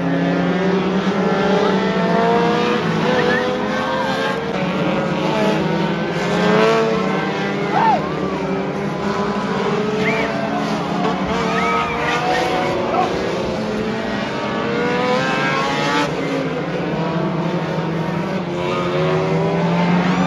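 Several figure-8 race cars' engines running and revving together as they lap the track, pitches rising and falling as cars accelerate and pass, with a few short tire squeals.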